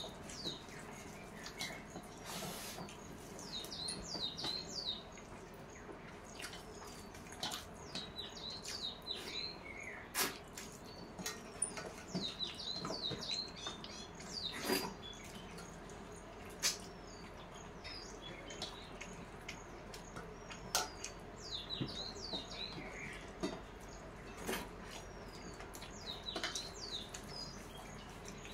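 Eating by hand from steel plates: scattered soft clicks and smacks of chewing and fingers working rice on the plates. Bursts of high chirping sound every couple of seconds behind them.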